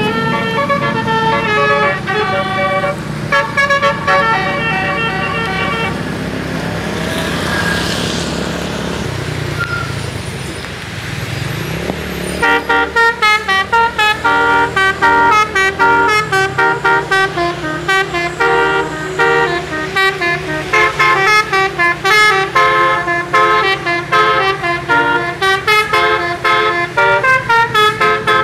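A bus's multi-trumpet 'telolet' air horn playing tunes, its notes changing quickly. About six seconds in the tune stops and a few seconds of engine and road noise follow. Around twelve seconds in the horn starts again with a fast, stuttering run of notes that keeps going.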